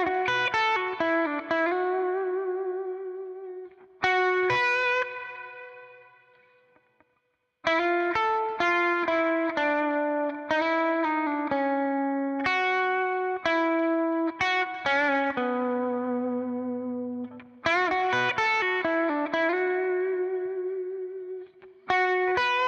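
Solo electric guitar, a Telecaster-style solid-body, playing a single-note blues lick: quick runs of plucked notes with string bends and vibrato. It pauses briefly about a third of the way through, then carries on.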